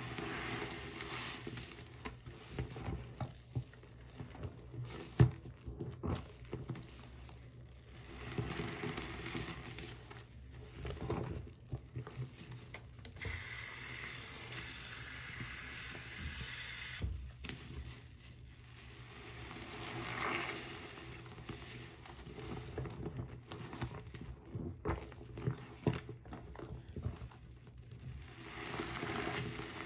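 A sponge full of Comet cleanser and Fab detergent lather is squeezed and scrubbed by hand in a sink of foamy water, giving irregular wet squelches and foam crackles. A tap runs onto it for a few seconds midway.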